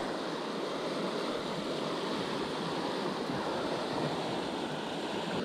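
Steady rush of a flowing river's current, an even noise with no breaks.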